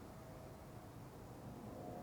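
Quiet background noise: a faint, even low rumble with a faint thin tone drifting through it.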